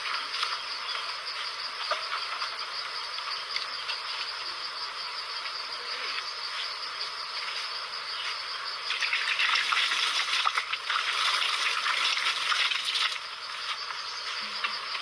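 Outdoor insect chorus: a steady dense high drone with a constant shrill tone on top. It grows louder for about four seconds past the middle.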